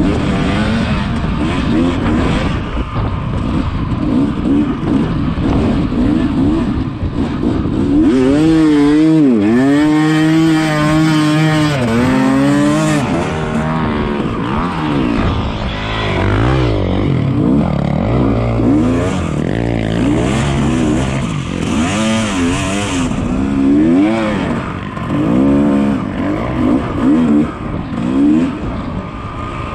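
Dirt bike engine being ridden hard on an enduro trail, revving up and dropping back over and over as the throttle is worked, its pitch rising and falling every second or so over a steady rough roar.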